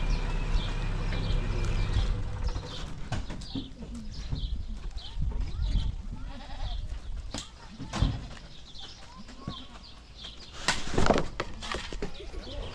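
Livestock bleating, with one loud drawn-out bleat near the end. A low steady hum cuts off about two seconds in.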